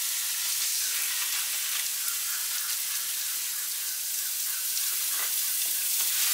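Chicken wings, fajitas and short-rib tablitas sizzling on the grates of a Santa Maria-style grill over a post oak and charcoal fire, a steady hiss as the raw wings are laid on the hot grate.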